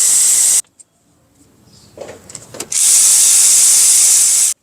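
Cordless power tool running in two bursts, each starting and stopping abruptly, backing out the two brake caliper bolts. A couple of light clinks come between the bursts.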